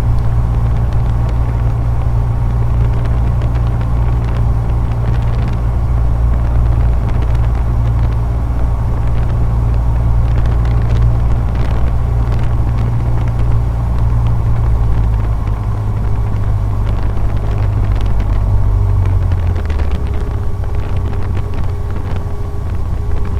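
Cessna 150's four-cylinder Continental O-200 engine and propeller droning steadily in the cockpit, in the landing pattern at reduced power. Near the end the drone drops a little in pitch as the power comes back.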